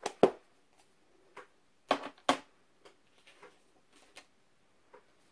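Scattered light clicks and knocks of craft supplies being handled and set down on a desk, the loudest two in the first half second.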